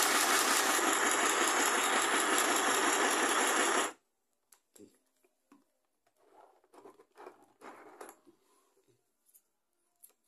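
Mini electric sewing machine running steadily as it stitches thin stretch fabric (elanca). It stops abruptly about four seconds in, leaving only faint scattered clicks.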